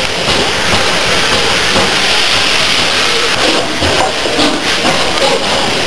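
Steam hissing steadily from a steam locomotive close by.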